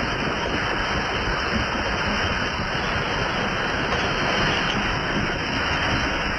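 Floodwater rushing in a steady, continuous roar of water noise, with no distinct splashes or strikes.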